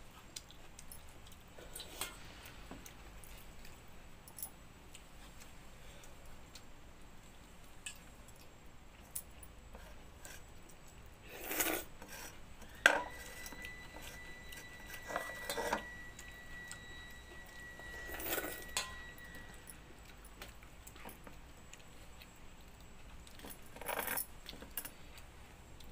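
Hand and bangles clinking against a steel bowl while watered rice is eaten by hand, with scattered small taps and a few brief louder rustles. About thirteen seconds in, one sharp clink sets the steel bowl ringing with a steady tone that fades over several seconds.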